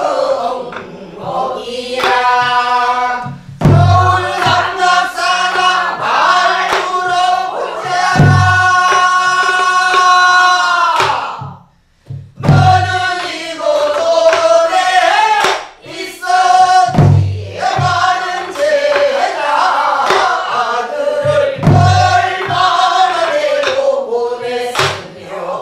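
A woman sings a Namdo (southern Korean) folk song in a pansori-style voice, with long held, wavering notes, while a group sings along. A sori-buk barrel drum struck with a stick gives a deep beat at the start of each phrase, about every four to five seconds.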